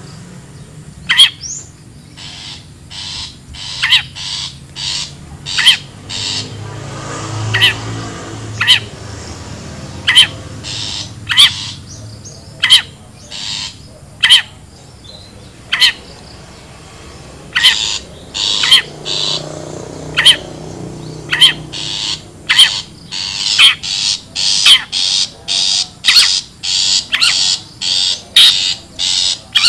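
Long-tailed shrike (cendet) giving a long series of short, loud calls, about one a second at first and quickening to about two a second in the last third. This is the wild shrike's own call, used as a lure for catching the birds.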